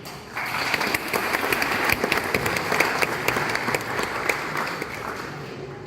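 Audience applauding: many hands clapping at once. The applause starts about a third of a second in and slowly tapers off near the end.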